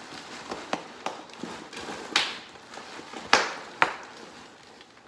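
Plastic bubble wrap rustling and crinkling as it is pulled out of a cardboard box, with several sharp crackles.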